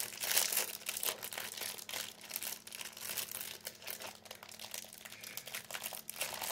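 Packaging of a spice bun crinkling and crackling in irregular bursts as it is handled and torn open.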